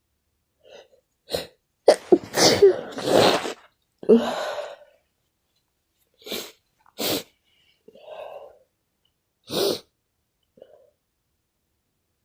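A person sneezing and sniffling in a fit: a cluster of loud sneezes about two to five seconds in, then several shorter sneezes and sniffs with short silences between.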